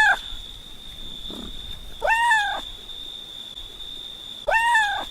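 Cat meowing: two high, clear calls about two and a half seconds apart, each rising then falling in pitch, with the end of another call right at the start.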